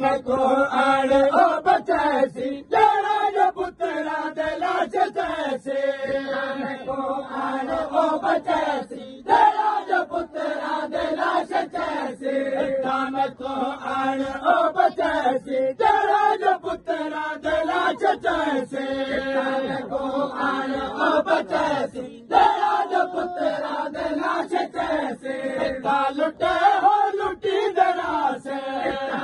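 A group of men chanting a noha, a Shia mourning lament, in unison. The singing is crossed by a steady beat of sharp slaps from matam, the ritual beating of the chest with open hands.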